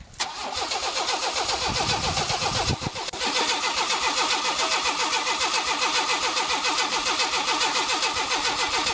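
A 1998 GMC Sierra's 4.3-litre V6 being cranked over by its starter without catching, an even rhythmic cranking with a brief break about three seconds in, while starting fluid is sprayed into the intake. It is a no-start after the truck sat for a week, which the owner suspects is a lack of fuel.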